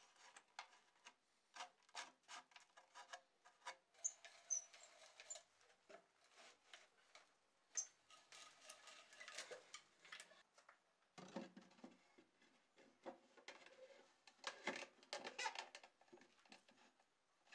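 Hand brace and auger bit boring through a wooden board: irregular scraping, creaking and clicking as the bit chews into the wood, with a few sharper knocks of wooden parts being handled.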